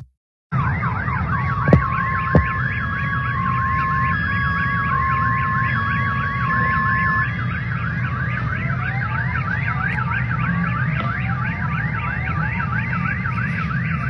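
Several car alarms sounding at once over a low rumble: one a fast rising-and-falling wail, about three or four sweeps a second, another alternating between two steady tones. Two sharp knocks come about two seconds in.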